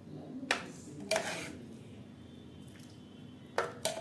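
Metal ladle clinking against the rim of a pressure cooker and a steel plate while sambar is served: two clinks about half a second and a second in, and two more in quick succession near the end.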